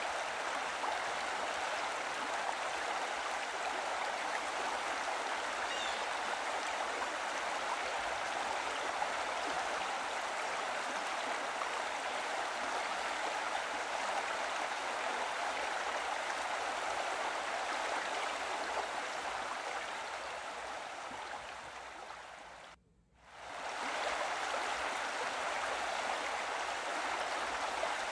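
Steady rushing of running water, played as a background track. It fades down over a few seconds, drops out for a moment about twenty-three seconds in, then comes back at full level.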